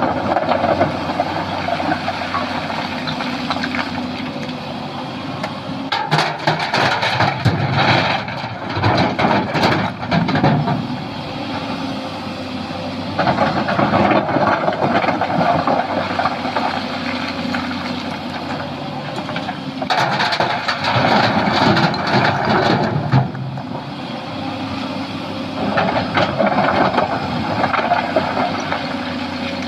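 Sany SY215C hydraulic excavator running under working load while loading fill material. The engine note swells with louder rushes of noise about every six or seven seconds as each load cycle comes round.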